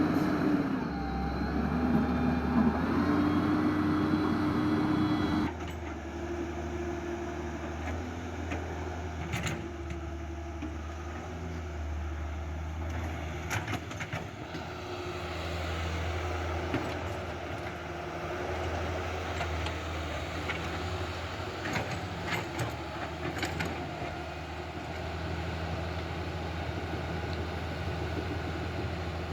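Electric motors of toy RC construction models whirring as they work, their pitch shifting up and down. The sound drops abruptly about five seconds in, and a few sharp clicks come later.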